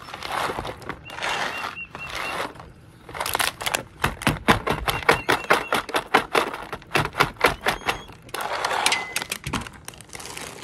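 Dried kernel corn shaken out of a small plastic bottle into a plastic gallon jug: swishes, then a long run of quick, irregular clicks as the kernels clatter down, densest from about three to eight seconds in.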